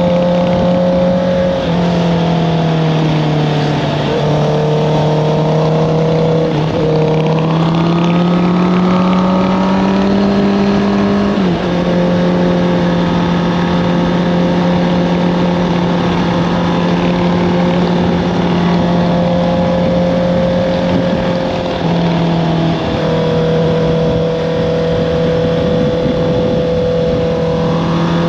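Honda CBR650R inline-four motorcycle engine with an Akrapovic exhaust, ridden at a fairly steady pace: the engine note sags and climbs gently, drops abruptly about twelve seconds in as a gear is changed, steps down slightly again later and starts climbing near the end.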